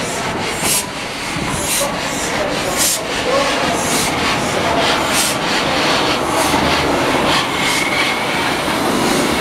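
Saddle-tank steam locomotive moving slowly past at close range, with regular exhaust puffs about once a second over a steady mechanical rumble.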